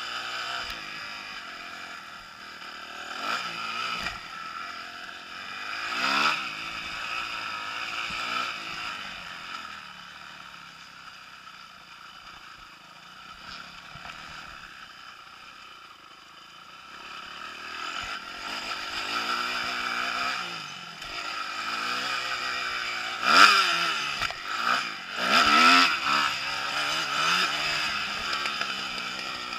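Kawasaki KX250F's four-stroke single-cylinder engine revving up and down again and again as the bike is ridden round a motocross track. It eases off for several seconds in the middle and pulls hardest a little before the end.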